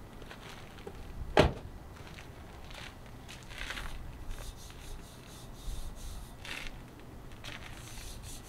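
Handling sounds from fitting a steel side-armor rail: a single sharp knock about a second and a half in, then faint scattered clicks and rustles.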